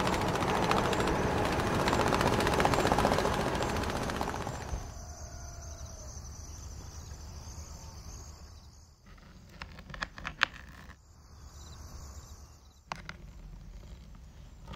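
Small electric motor and gears of a homemade toy tractor running as it drives the trolley, cutting off about four and a half seconds in. After that come a few sharp clicks and rustles of the trolley and dry straw being handled.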